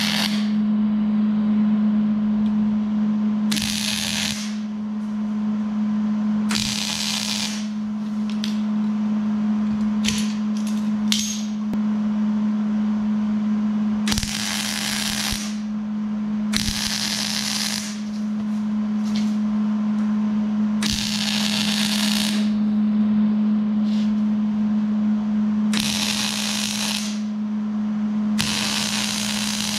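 MIG welder arc crackling and sizzling in a series of short welds on steel tubing, each lasting one to two seconds with brief pauses between, about seven longer welds and a few quick tacks. A steady low hum runs underneath.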